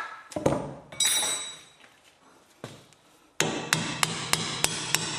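Hammer striking steel parts of a car's rear axle assembly: a couple of knocks and a ringing metallic clank, then from about three seconds in a steady run of sharp, ringing blows, about three a second.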